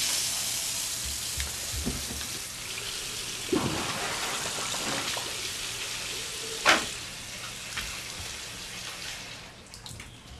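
Toilet flushing: water rushes in all at once, then slowly dies away over about nine seconds, with a few small knocks and one sharp knock about two-thirds of the way through.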